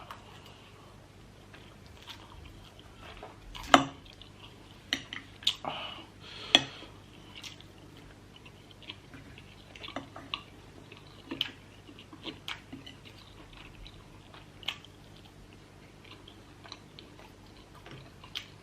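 Close-miked mouth eating sounds: chewing and biting with scattered sharp clicks and smacks, the loudest about four seconds in and a cluster soon after, thinning out later.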